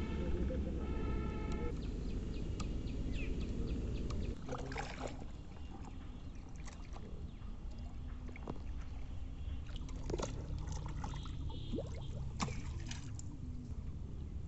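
Shallow water lapping and splashing around floating plastic bottles, with a scatter of small clicks and splashes. A heavy wind-like rumble runs through the first four seconds. A drawn-out pitched tone is heard in the first second or two.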